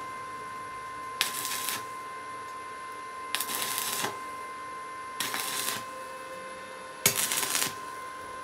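Stick-welding arc, a rod electrode on steel, struck four times in short bursts of under a second each, the loudest about seven seconds in. A steady high whine runs underneath.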